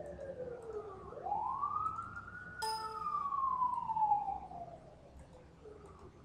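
Emergency vehicle siren wailing: a slow fall in pitch, a quick rise about a second in, another slow fall, and the start of another rise at the end, growing fainter in the last couple of seconds. A short click sounds a little over two and a half seconds in.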